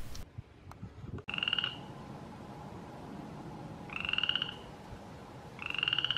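Frog calling: three short pulsed trills of about half a second each, the first about a second in, the next two a few seconds apart near the middle and the end.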